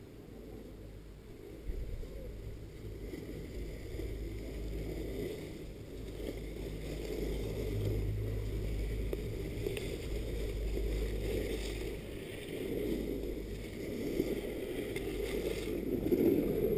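Wind buffeting the camera's microphone on a moving chairlift, with a low rumble from the lift that grows louder about two seconds in and swells briefly around the middle as the chair passes a lift tower.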